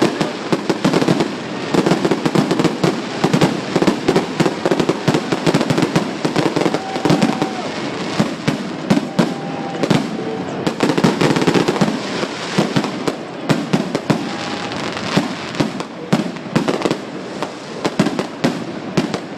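Fireworks display: a rapid, unbroken run of bangs and crackling pops.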